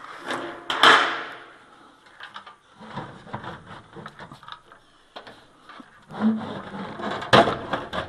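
Thin sheet-metal furnace access panel being handled and fitted back onto the cabinet: irregular metal clatters and knocks, with a loud rattle about a second in and another near the end, and small clicks between.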